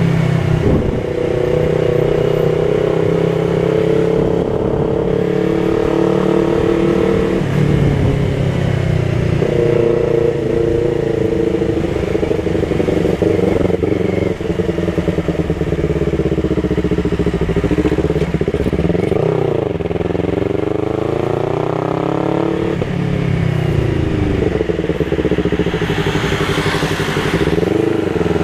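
Yamaha MT-03 motorcycle engine running through a Jeskap aftermarket exhaust with the dB killer removed, ridden on the road. The note holds steady for long stretches, rises as the bike accelerates about twenty seconds in, then drops back.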